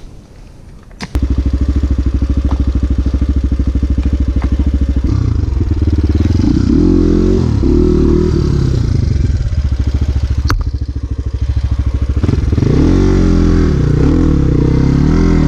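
Dirt bike engine starting abruptly about a second in and idling, then revved up and down repeatedly as the rider tries to drive the bike free of the slippery rut it is stuck in.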